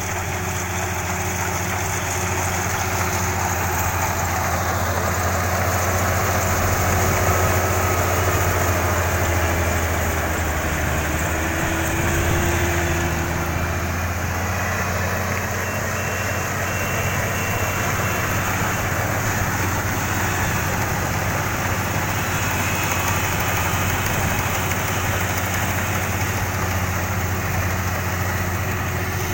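Kubota DC-35 combine harvester running steadily: an even engine hum with a dense wash of machinery noise over it.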